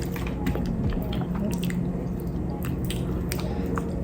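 Person chewing a bite of croissant stuffed with cookie dough close to the microphone: scattered soft, wet mouth clicks and smacks over a steady low hum.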